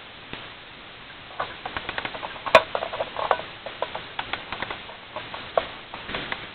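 An old wind-up alarm clock's winding key being turned, its ratchet clicking in quick, irregular runs from about a second and a half in, with one louder click about two and a half seconds in.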